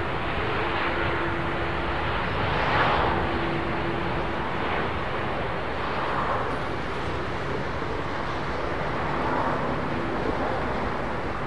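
Jet engines of a WestJet Boeing 787 Dreamliner, a steady roar as the airliner rolls down the runway after landing, heard from beside the airfield.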